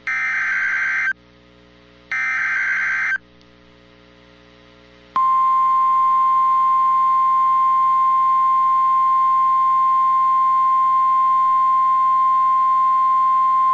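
NOAA Weather Radio emergency alert signal. Two one-second bursts of the digital SAME header's screechy warbling data end its three-times-repeated header. After a short gap, about five seconds in, the steady 1050 Hz warning alarm tone starts and holds. Together they announce a warning broadcast, here a severe thunderstorm warning.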